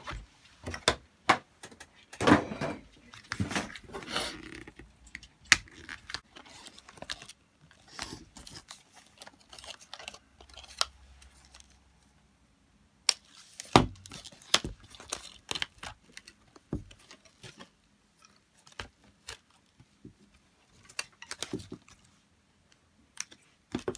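Cardboard doll box and plastic packaging being handled: irregular rustling and crinkling with scattered sharp clicks and taps, busiest about two seconds in and again near the middle, as the doll is worked out of its tray.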